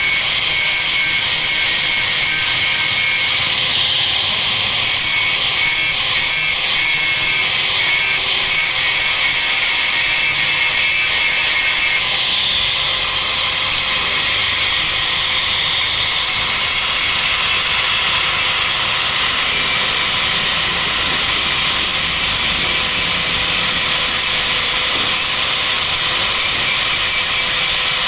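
Small handheld rotary power tool (mini drill/grinder) running steadily, grinding away the burnt, carbonised area of a solar charge controller's circuit board. Its tone changes about twelve seconds in.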